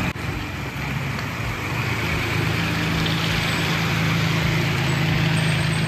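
2022 Ford Bronco Badlands engine idling: a steady low hum that grows a little stronger about two seconds in.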